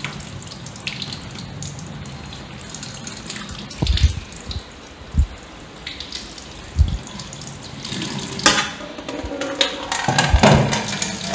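Kitchen tap running into a stainless-steel sink as small fish are rinsed under it by hand, with a few dull knocks midway and louder splashing near the end.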